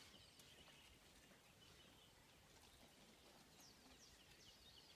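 Near silence, with faint bird chirps: short, quick downward-sweeping notes just after the start and a run of them in the last second and a half, with a few faint clicks.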